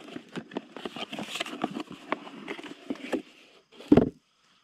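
Cardboard shipping box being opened by hand: rustling and crackling of the flaps and packing, with a single loud thump about four seconds in, after which it goes quiet.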